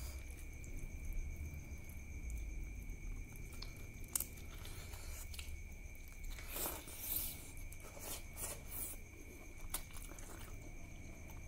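Close-up eating sounds: fingers mixing rice with duck curry, then a handful taken into the mouth and chewed, with scattered short clicks and the loudest stretch about seven seconds in. A faint steady high whine runs underneath.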